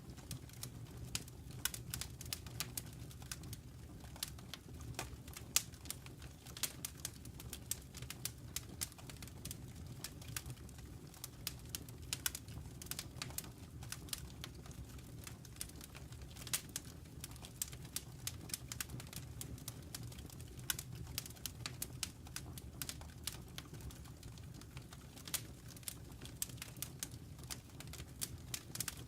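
Wood fire crackling in a fireplace: irregular sharp pops and snaps, several a second and varying in loudness, over a low steady hum.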